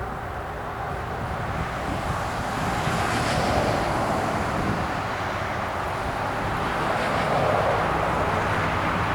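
Small two-stroke Stihl MS 170 chainsaw with a thin quarter-pitch bar and chain running and cutting through a cedar log, getting louder twice as it bites into the wood.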